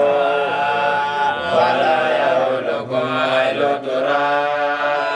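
Islamic religious chanting: a voice chanting in long, drawn-out notes that bend and waver in pitch, sung without a break.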